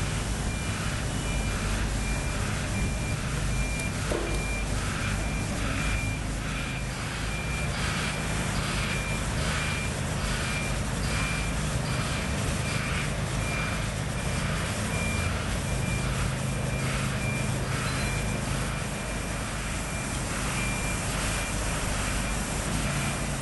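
Heavy-haulage transporter's diesel engine running with a steady low drone, while a high-pitched reversing-type warning beeper sounds in evenly spaced beeps throughout.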